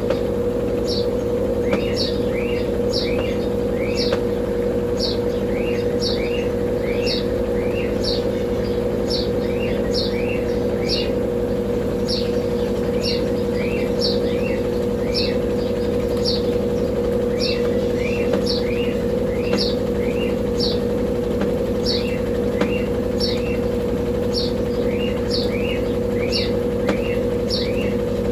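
Brastemp Double Wash BWD15 washing machine running its intermediate spin with the mini-basket: a steady motor hum with a constant mid-pitched tone. Over it a bird chirps repeatedly, about one or two short chirps a second.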